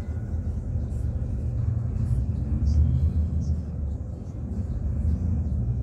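Steady low rumble of an intercity coach's engine and road noise, heard from inside the passenger cabin while the bus is moving.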